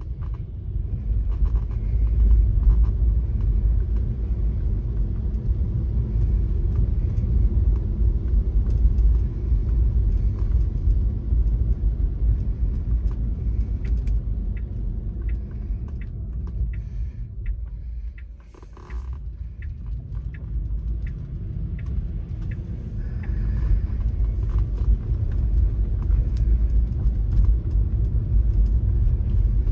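Steady low rumble of a car driving on wet roads, heard from inside the cabin. It dips briefly about two-thirds of the way through as the car slows almost to a stop, then builds again as it pulls away, with scattered light ticks in the middle stretch.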